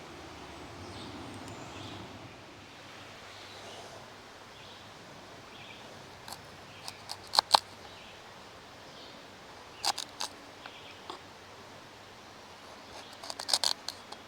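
Light clicks and clinks in three short clusters, about seven, ten and thirteen seconds in, over a quiet outdoor background: camp cooking gear being handled while setting up to cook.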